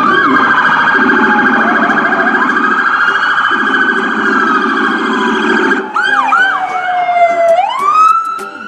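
Several police car sirens sounding at once: a fast-warbling yelp over a slow falling wail, then a few short whooping chirps about six seconds in and a wail that sweeps back up near the end.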